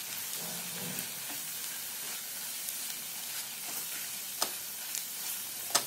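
Ground spices, onion and coconut-garlic paste sizzling in hot oil in a kadhai as a wooden spatula stirs them together, with a steady frying hiss. A few sharp clicks stand out, the loudest near the end.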